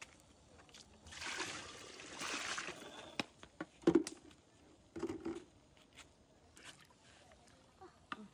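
Metal ladle stirring a large aluminium pot of tomato stew: liquid swishing and sloshing for a couple of seconds, then a few sharp clinks of the ladle against the pot, the loudest about four seconds in.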